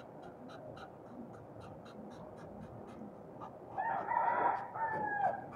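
A rooster crowing once, about one and a half seconds long, starting a little after the middle and falling in pitch at its end. Faint regular ticking, about four times a second, runs underneath.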